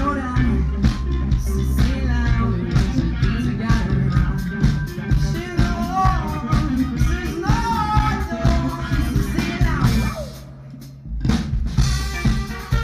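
A rock band playing live, with a singer, drum kit and electric guitar. About ten seconds in the band stops for about a second, then comes back in together.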